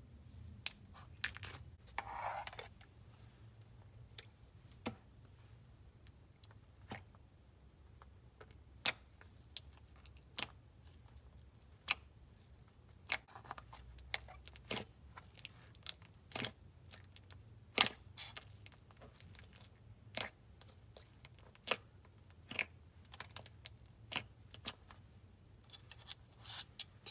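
Thick, glossy clay slime being stretched, folded and pressed by hand. It gives irregular sharp clicks and pops, at times a few a second.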